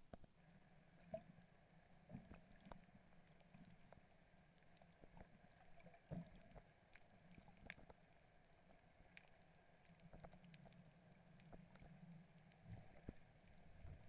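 Faint, muffled underwater sound heard through a camera housing: a low steady hum with scattered small clicks.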